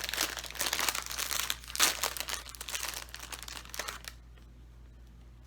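Plastic snack bag crinkling as it is handled and torn open, with one sharp loud crackle about two seconds in; the crinkling stops about four seconds in.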